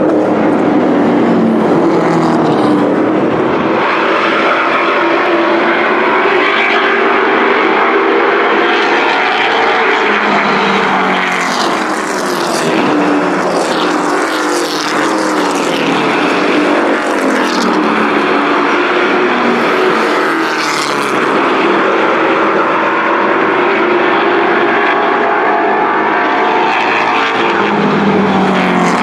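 Several race truck engines running hard around a paved oval, overlapping, their pitch rising and falling as the trucks accelerate and slow through the turns and pass by.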